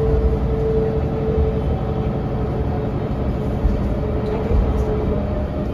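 Inside a 2001 Mercedes-Benz O405NH bus under way: low engine and driveline rumble with a steady gear whine from the hub-reduction axle and ZF automatic gearbox, which fades out partway through and comes back briefly.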